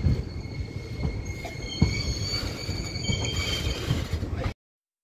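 A passenger train running, heard from an open coach doorway: a steady rumble with scattered knocks from the wheels and track, and a high steady squeal of wheel flanges on the curve. The sound cuts off abruptly near the end.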